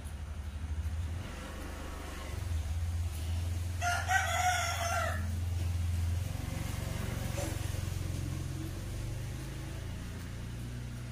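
A single drawn-out animal call with a clear pitch, about four seconds in, over a steady low hum.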